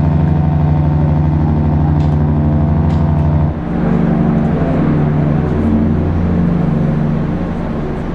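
Ship's horn sounding a long, deep, steady blast. About three and a half seconds in, the tone shifts and carries on, then fades near the end.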